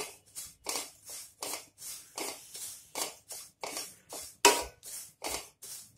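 Wooden spatula scraping and stirring desiccated coconut around a dry kadhai as it is roasted, about three scraping strokes a second.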